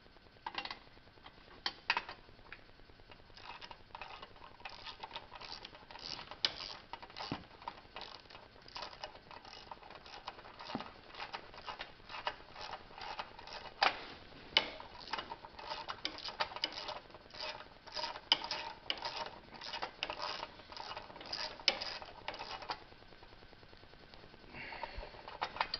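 Ratchet wrench clicking with irregular clinks of hand tools while a spark plug is screwed back in and tightened; the clicking stops a few seconds before the end.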